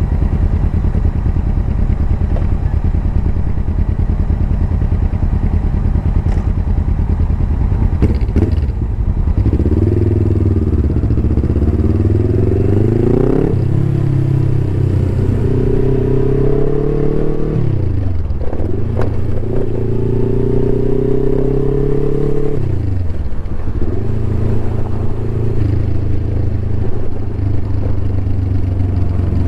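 Suzuki GS500E's parallel-twin engine through a Takkoni aftermarket exhaust, idling for about eight seconds. It then pulls away and revs up through the gears, its pitch climbing and dropping sharply three times at the gear changes. Near the end it runs steadily at a lower pitch.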